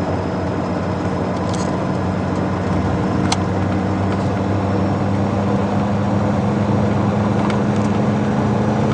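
Motor vehicle engine running steadily at an even pitch, with a few light clicks.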